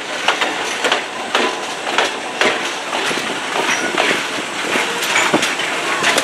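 Passenger coaches and a trailing electric locomotive rolling slowly past, their wheels clacking irregularly over rail joints and points under a steady rumble.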